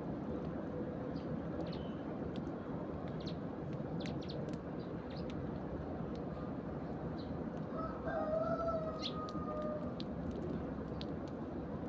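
Sparrows chirping in short, scattered notes over a steady low rumble. About eight seconds in, a rooster crows once for about two seconds, the loudest sound.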